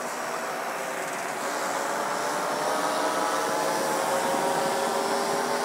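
Engines of powered paragliders (paramotors) flying overhead: a steady droning hum that grows slowly louder.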